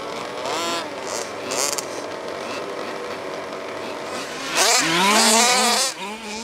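Small two-stroke engines of large-scale petrol RC buggies revving in short blips, then a loud stretch of hard throttle about four and a half seconds in, the pitch sweeping up and down.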